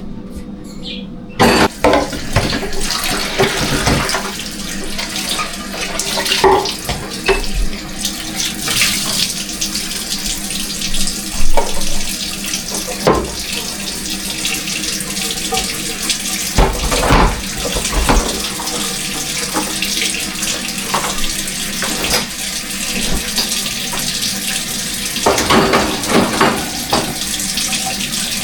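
Kitchen sink tap running steadily, switched on about a second and a half in, with scattered knocks and clatters of items being washed and handled under the water.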